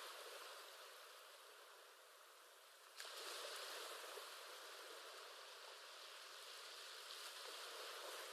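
Faint recorded ocean waves: a steady, thin wash of surf noise with no low rumble, easing and swelling slowly, and jumping abruptly louder about three seconds in.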